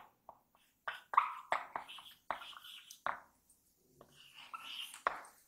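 Dry-erase marker squeaking and tapping on a whiteboard in short, quick strokes. The strokes come in two spells with a pause of about a second between them.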